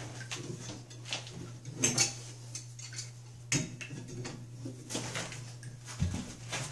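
Metal tools clinking and scraping against a sink shut-off valve and copper pipe fittings: a few sharp knocks and clinks at irregular intervals, over a steady low hum.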